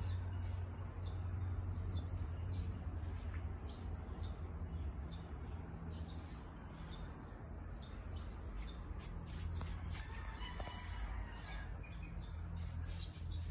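Outdoor insect and bird ambience: a steady high insect drone with short chirps repeating throughout, and a brief bird call about ten seconds in, over a low steady hum.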